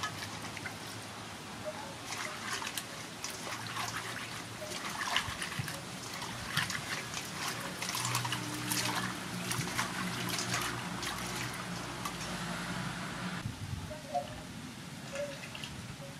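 Hands swishing and rubbing young green tamarind pods and chilies in a stainless steel bowl of water: splashing and trickling that stops about three-quarters of the way through. A low steady hum sits in the background through the middle.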